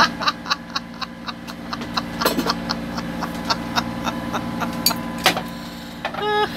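Rapid, even clicking, about four clicks a second, over a steady low engine hum inside a yacht's cabin. The clicking stops about five seconds in, and a short pitched squeak follows near the end.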